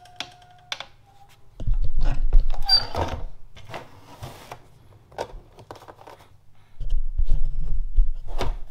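Vinyl plank cutter's blade pressed down through a rigid vinyl plank, giving a crunching, crackling cut with low thuds. It happens twice, about a second and a half in and again near the end. The corner was first relieved with a multi-tool cut so that the plank does not crack.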